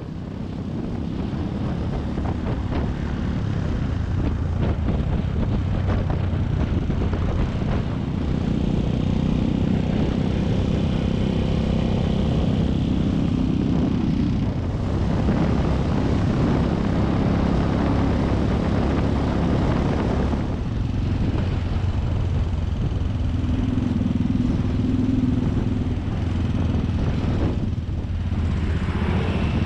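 Suzuki 250 cc motorcycle engine running steadily under way, heard from on the bike with road noise. The engine note drops briefly three times, about halfway, about two-thirds in and near the end, as the throttle eases off.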